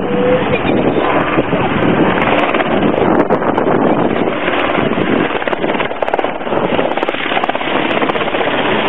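Small light helicopter's rotor and engine noise as it flies low overhead, a loud, steady roar.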